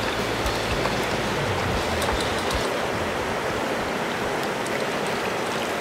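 Shallow rocky trout stream flowing over riffles: a steady rush of water.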